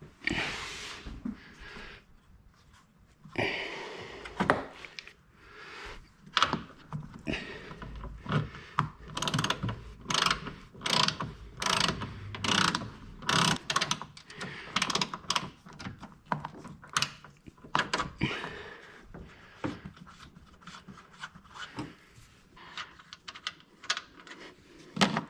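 Hand ratchet wrench clicking in short runs as strut tower nuts are worked, with knocks and clatter of tools and metal parts. The clicking grows busier after the first several seconds.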